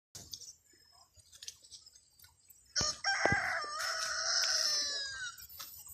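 A rooster crowing once: a single long call of about two and a half seconds that starts about three seconds in and falls in pitch at its tail.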